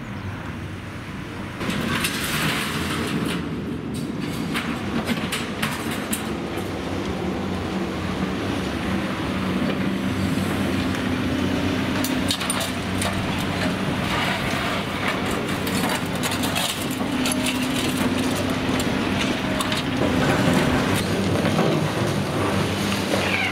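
Diesel engine of a Caterpillar 330D demolition excavator running steadily, with repeated cracking and crunching of concrete and clatter of falling debris as its crusher jaws bite into the building's floor slabs. The engine hum grows stronger about halfway through.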